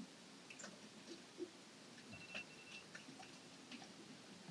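Near silence with scattered faint small clicks and ticks, and a faint high steady tone lasting under a second about two seconds in.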